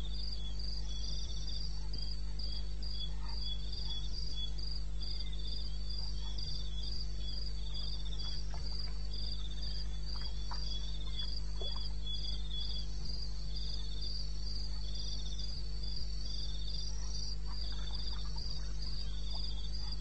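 Crickets chirping: one keeps up an even run of short chirps, about two a second, while another chirps in short groups at a slightly lower pitch, over a steady low hum.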